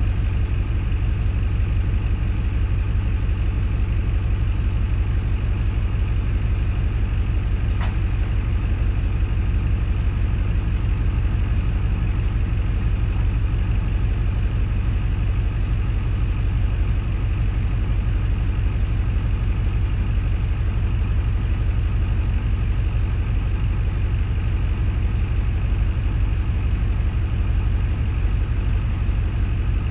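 Diesel engine of a KC-RX4JFAA (Hino Liesse) small bus running steadily, heard from inside the passenger cabin as a low, even rumble. There is one faint click about eight seconds in.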